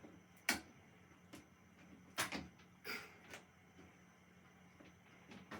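Scattered sharp clicks and knocks of handling a retractable indoor clothesline, its lines and hooks being fitted to wall hooks under tension.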